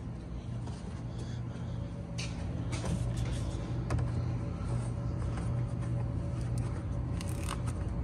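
Dodge Caliber's four-cylinder engine idling steadily, with a few light clicks over the top.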